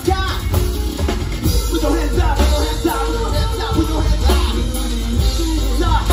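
Loud live rock music over the club PA: electric guitar played over a DJ's backing track with heavy bass and drums.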